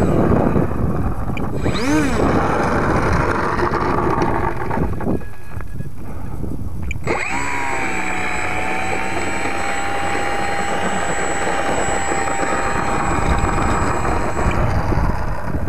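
Strong wind buffeting the microphone, together with the whine of a ParkZone Visionaire RC plane's electric motor. The pitch swells and falls briefly about two seconds in, then holds steady from about halfway through.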